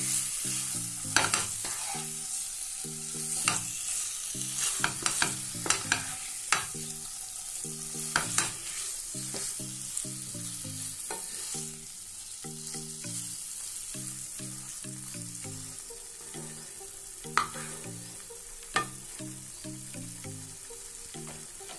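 Chicken pieces coated in masala frying in oil in a non-stick pan, sizzling with a steady hiss, while a wooden spatula stirs and scrapes them with scattered sharp knocks against the pan. The stirring is busier in the first half and eases after about twelve seconds.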